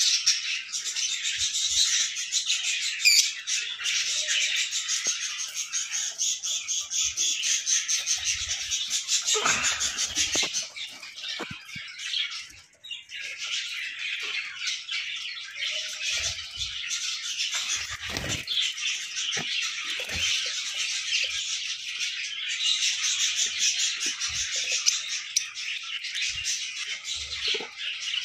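A flock of lovebirds chattering and squawking nonstop in high, rapid, overlapping calls, easing off briefly about halfway through.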